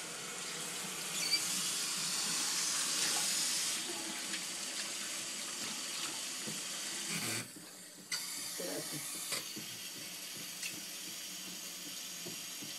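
Bathroom sink faucet running into the basin, a steady rush of water while a hand adjusts the tap to change the bath water. The flow cuts off briefly just past seven seconds, then comes back on.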